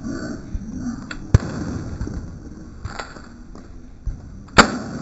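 AR-15 rifle with a standard A2 flash hider firing .223 Remington in slow fire: three single shots about a second and a half apart, the last the loudest.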